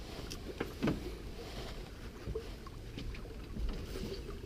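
A small boat sitting on the water, with a steady low rumble of wind and water against the hull. A few faint ticks of handling sound in the first second.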